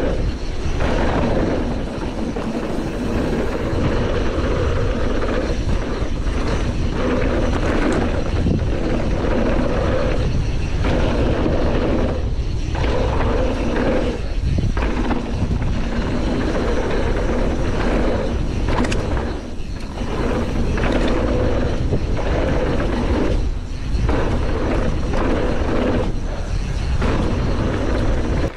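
Downhill mountain bike ride heard from a chest-mounted action camera: wind rushing over the microphone together with knobby tyres running over a dirt trail and the Canyon Torque full-suspension bike rattling. The noise is loud and continuous, with short drops now and then.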